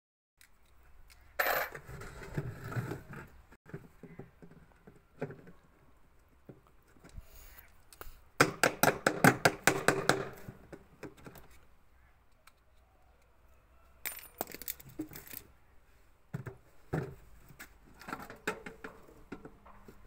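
Metal hand tools clinking and clattering while a washing machine's plastic outer tub is taken apart, with a run of quick, even clicks a little before halfway, the loudest part.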